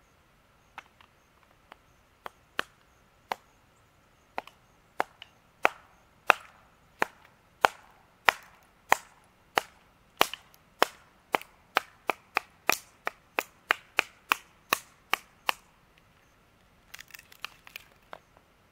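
Kindling being chopped, a blade striking wood: a few scattered chops at first, then a steady run of sharp chops about two a second that stops about three-quarters of the way through. A brief light clatter of small wood pieces follows near the end.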